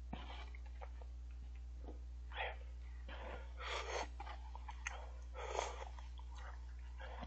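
A person slurping cup ramen from a bowl held to the mouth: several short slurps, the biggest about four and five and a half seconds in, with small chewing clicks between them, over a steady low hum.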